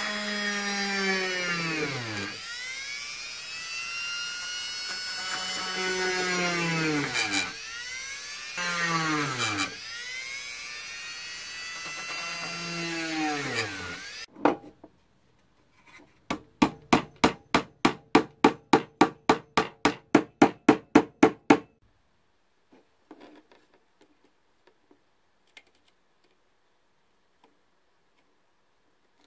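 Electric drill working into wood in about five runs, its motor pitch sagging under load each time. Then about five seconds of rapid, even clicking, about five a second, and a few faint taps.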